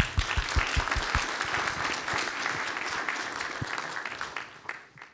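Audience applauding: dense clapping that starts at once and slowly thins out, dying away near the end.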